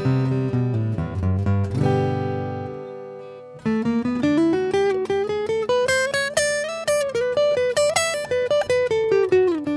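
Acoustic guitar played through a Double X2 sound-hole pickup, its magnetic humbucker blended with its built-in microphone. A chord rings and fades away, then after a brief pause a quick run of plucked notes climbs and comes back down.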